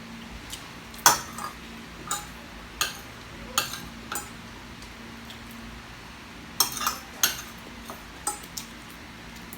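Metal utensil knocking and scraping against cookware: about a dozen sharp clinks at uneven intervals, as when stirring or scooping fried rice.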